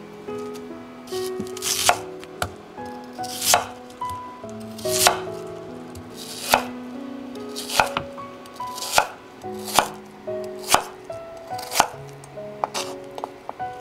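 Global chef's knife chopping through peeled Chinese yam (nagaimo) onto a wooden cutting board, about a dozen sharp cuts roughly a second apart.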